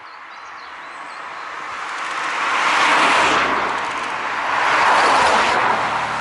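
Two cars drive past one after the other. Engine and tyre noise swell to a peak about three seconds in, dip, swell again about two seconds later for the second car, then fade as it goes by.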